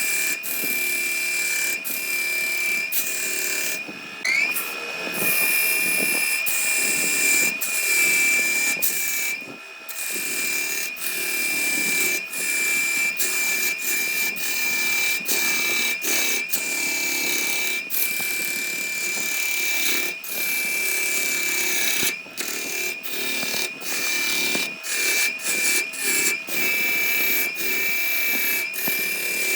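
Electric power tool running with a steady high-pitched motor whine, broken by many brief dips in speed. About four seconds in the whine rises in pitch as the motor spins back up.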